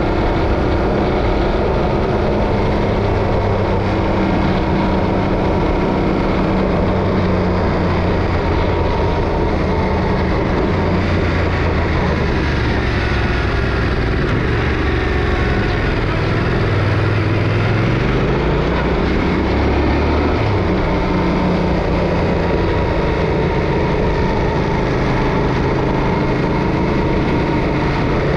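Yamaha Ténéré 700's 689 cc parallel-twin engine running under way, over a steady rush of wind and road noise. Its pitch shifts down and up a few times around the middle.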